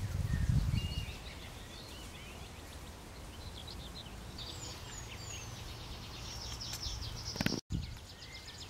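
Outdoor ambience with birds chirping and singing intermittently over a steady background hiss, and a low rumble in the first second. The sound cuts out for an instant near the end.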